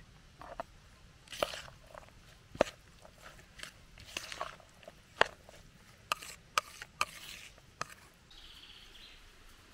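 Kitchen utensils clinking and scraping against dishes: a dozen or so sharp separate clicks and a few short scrapes, irregularly spaced.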